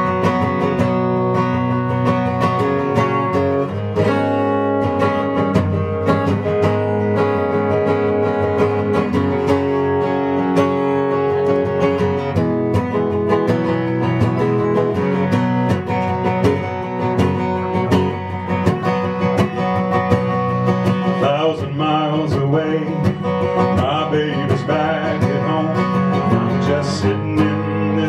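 Steel-string acoustic guitar strummed in a steady rhythm, playing the song's introduction. A man's voice comes in singing about three quarters of the way through.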